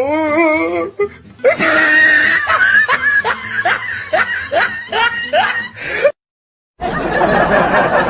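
Edited-in comedy music with wobbling, then short rising squeaky notes that repeat about twice a second. It cuts off abruptly about six seconds in. After a brief silence, steady street traffic noise takes over.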